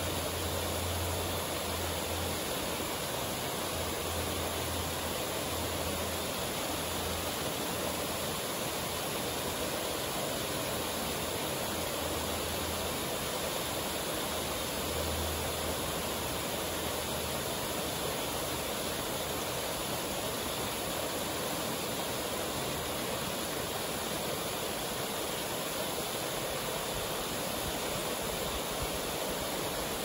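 Waterfall and stream rushing steadily over rock.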